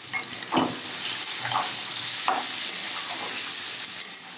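Fried jackfruit seeds and yardlong beans sizzling in hot oil in a pan, with a spatula stirring and scraping through them in several strokes about once a second.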